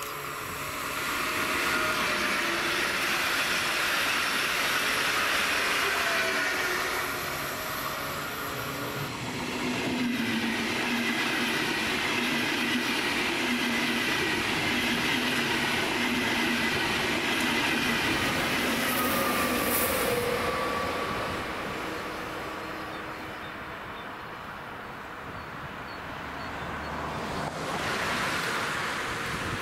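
A Stadler FLIRT electric multiple unit runs by, then an ÖBB Railjet passes close by, pushed by its Class 1116 Taurus electric locomotive at the rear. The wheels roll and clack on the rails under a rising and falling electric whine, which fades after about twenty seconds.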